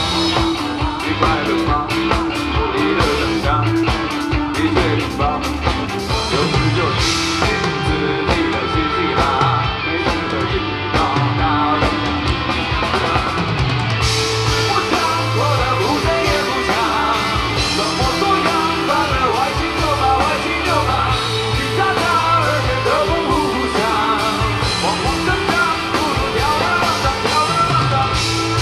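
Rock band playing live at a steady loud level: drum kit keeping a driving beat under bass and electric guitar, with a voice singing at times.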